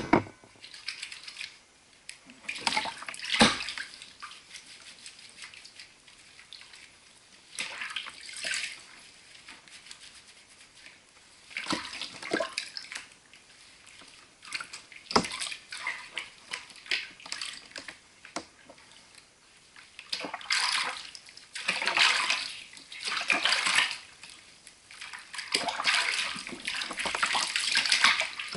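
Bathwater splashing and sloshing in a tub as a kitten is washed by hand, in irregular bursts that come thicker and almost continuous toward the end.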